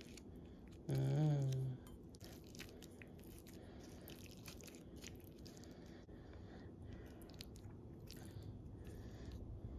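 Plastic fork cutting into a baked stuffed bell pepper on a plate, faint scattered clicks. About a second in, a short hummed "mm" from a person.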